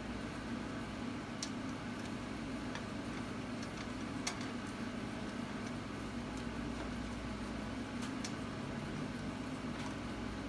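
A metal spoon stirring melted butter mixture in a small plastic container, clicking and scraping irregularly against its sides, over a steady low hum.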